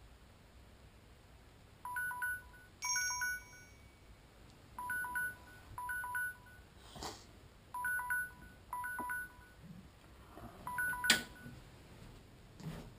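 Smartphone alarm ringing: a short electronic chime sounding in pairs about every two seconds. There is a knock about seven seconds in, and a louder one as the alarm stops near the end.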